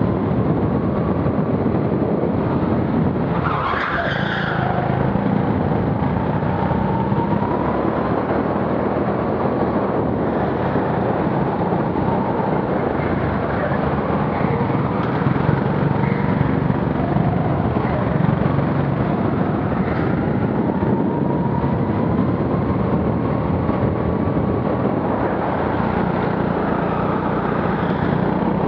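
Go-kart engine running hard through laps of an indoor track, its pitch rising and falling with the throttle, with a short tyre squeal about four seconds in.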